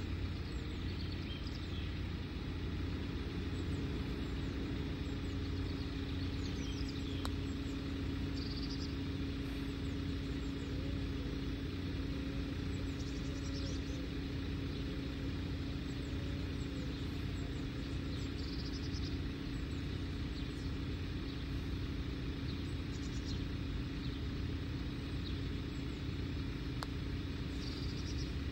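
A steady engine drone with a constant low hum runs throughout, with birds chirping now and then. Two faint clicks, one about seven seconds in and one near the end, are the putter striking a golf ball.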